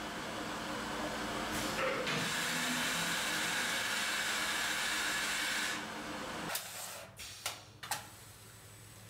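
NC-driven multiroller bending machine running with a steady hiss and whir as a stainless-steel sheet is rolled into a tube. The noise drops off about six seconds in, followed by a few sharp clicks and clunks of the machinery.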